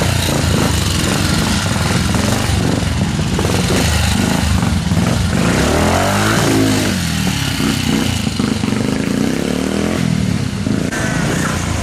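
Triumph Tiger Cub trials motorcycle's single-cylinder four-stroke engine revving up and dropping back as it is ridden through a streambed section, with a clear rise and fall in revs about six seconds in.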